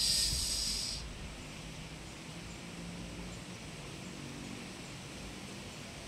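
Strong wind rushing through coconut palm fronds and tree leaves in a steady rustle, with a louder high hiss in the first second.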